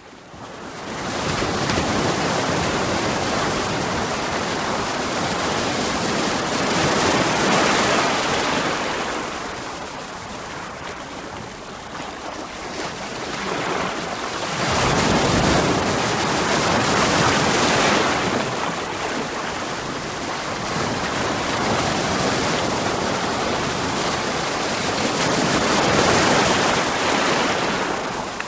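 Ocean waves breaking and washing over rocks: a continuous rushing surf that swells three times as larger waves come in. It rises out of silence in the first second.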